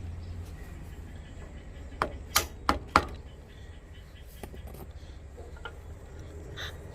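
Four sharp knocks in quick succession, about a third of a second apart, from a tool striking metal parts during engine repair work, over a faint low hum.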